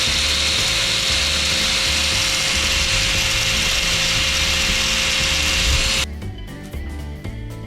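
Small electric power tool running at steady speed, polishing the rusty steel of a kitchen knife: a steady whine under a rough hiss of abrasion, which stops abruptly about six seconds in, leaving quiet background music.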